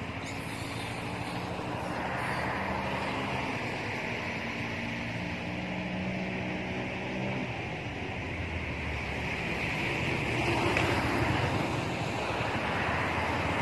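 Steady outdoor background noise with a low, even motor hum for about the first half, which then drops away; a swell of rushing noise, like wind, follows a few seconds later.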